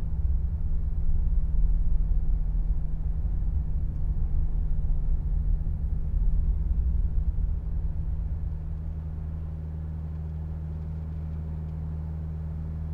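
Truck engine and road rumble heard inside the cab as a steady low hum. About eight or nine seconds in, the rumble eases and the hum grows quieter and smoother as the truck slows.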